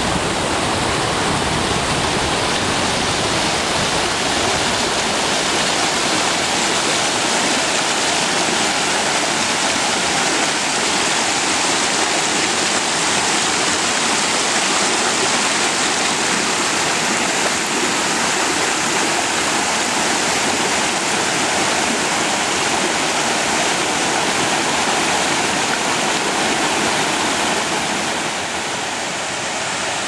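Creek water rushing over rocks and a small cascade, a steady loud rush that eases slightly near the end.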